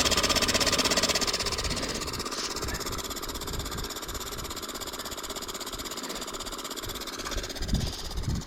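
A small engine running steadily under a hiss, fading gradually over the first few seconds and then holding level, with a couple of low thumps near the end.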